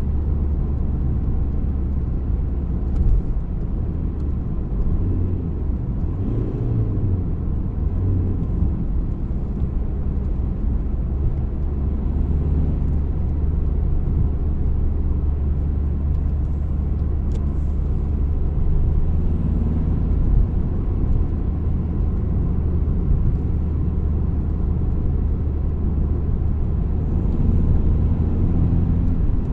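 VW Golf IV 1.9 TDI (AXR) four-cylinder pump-injector diesel running steadily, with low rumble and a brief change in engine pitch a few seconds in.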